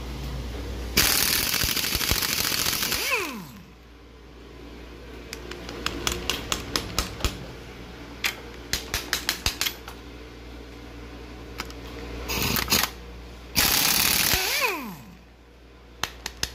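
Impact wrench hammering the 17 mm sprocket-carrier nuts loose in two bursts of about two seconds each. Its whine falls away as the motor spins down after each burst. Between the bursts comes a run of quick metallic clicks.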